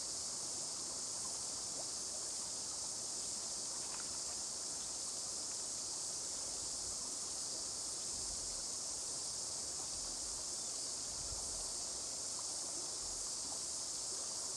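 Steady, unbroken high buzzing of a cicada chorus in the bush, holding one level throughout.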